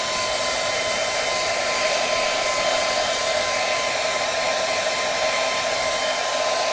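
Handheld hair dryer running steadily on its cold setting: an even rush of air with a steady high motor whine.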